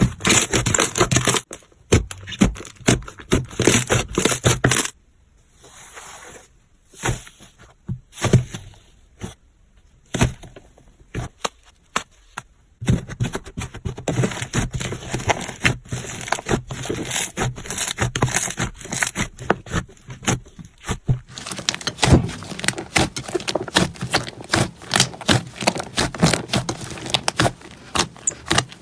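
Slime being squeezed and pressed by hand: dense, crackling clicks and pops with some scraping. It goes quiet and sparse for several seconds in the middle, then the crackling picks up again.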